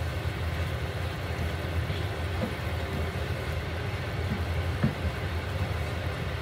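Red wine sauce simmering in a frying pan while a wooden spoon stirs it, with a couple of light knocks of the spoon against the pan, over a steady low hum.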